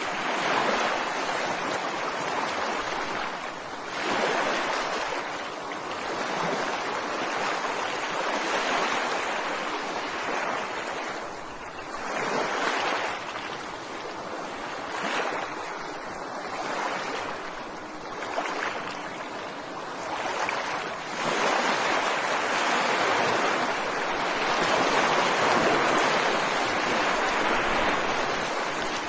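Ocean waves breaking and washing on a shore, a steady rush that swells and ebbs every few seconds and grows louder for a long stretch in the last third.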